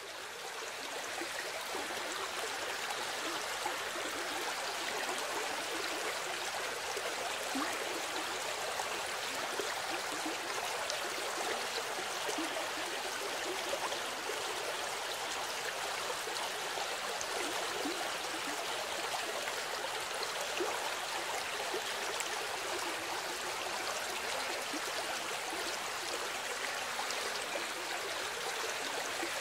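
Steady rushing of flowing water, like a stream, fading in over the first second and then holding even.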